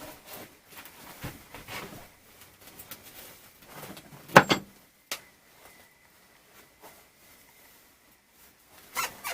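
Handling noises in a small shop: light rustles and clicks, with one sharp knock about four and a half seconds in and a smaller one just after.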